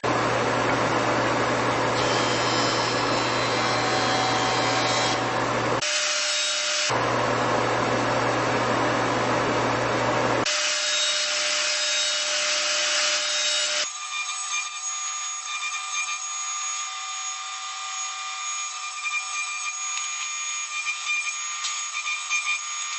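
Woodworking power tools cutting wood, in a series of edited segments: first a machine with a steady low motor hum under noisy cutting, then from about 14 seconds in a thinner, higher machine sound with a few steady tones.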